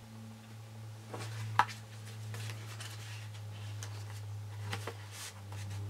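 Card stock and a paper tag being handled on a table: light rustles and taps, with one sharper tap about a second and a half in, over a steady low hum.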